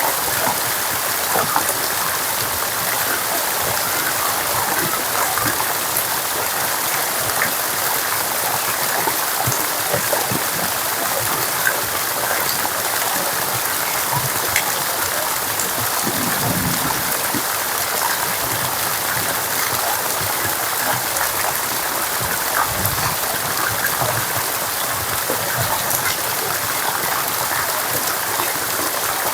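Steady rain falling, a dense even hiss full of small drop ticks. A couple of brief low rumbles come through about halfway and again about two-thirds of the way in.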